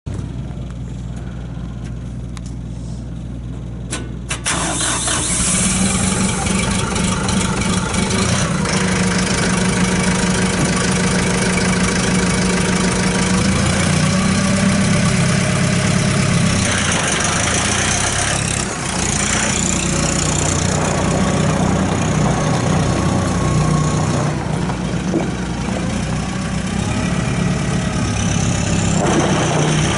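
A Kubota M108S tractor's four-cylinder diesel engine starts about four seconds in and keeps running, its pitch rising and falling with the throttle. Near the end the tractor drives off.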